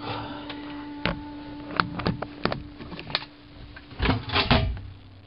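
Irregular knocks and clatters, a few single ones and then a louder cluster about four seconds in, over a faint steady hum.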